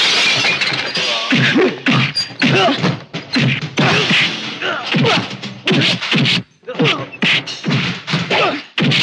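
Movie fight sound effects: a rapid string of dubbed punch and kick whacks, mixed with grunts and shouts.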